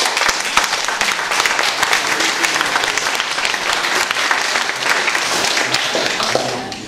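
A small gathering applauding: dense hand-clapping that thins out and stops near the end.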